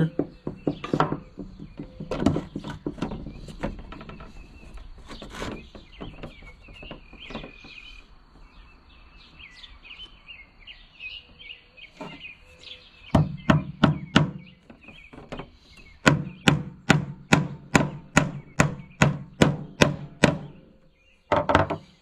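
Small nails being hammered into a wooden beehive super frame: scattered taps, a quick cluster about thirteen seconds in, then a steady run of about three blows a second for several seconds. Birds chirp faintly in the background.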